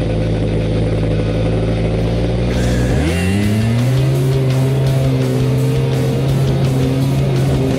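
Snowmobile engine running at steady high revs, its pitch rising sharply about three seconds in as it accelerates and then holding at the higher pitch, with music underneath.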